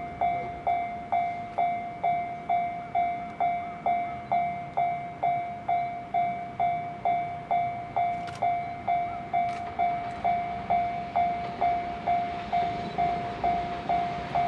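Railway level-crossing warning bell ringing, a single clear ding about twice a second. Under it, the low rumble of an EF65 electric locomotive's freight train grows louder near the end as it approaches.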